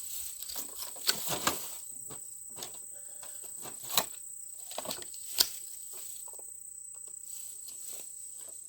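Crickets or other insects keep up a steady high-pitched chirring. Over it come a few sharp knocks and clunks from a car battery being handled and turned around, the loudest about four and five and a half seconds in.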